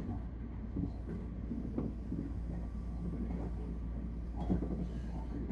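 Tobu 60000 series electric train running, heard from inside the front car as a steady low rumble. A couple of short knocks from the wheels on the track come about two seconds in and again near the end.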